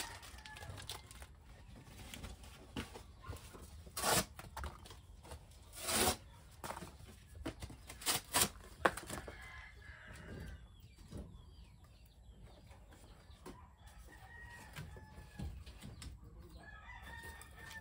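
Chickens clucking and a rooster crowing, with a few sharp knocks and rustles about four, six and eight seconds in.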